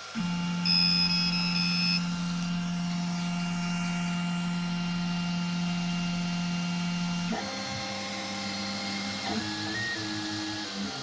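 FlashForge Creator Pro 3D printer's stepper motors whining as the print head moves. The whine is a steady set of tones that starts suddenly and shifts pitch abruptly twice as the moves change.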